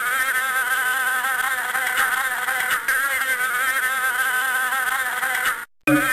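A fly buzzing without a break, its pitch wavering up and down. It cuts off suddenly near the end.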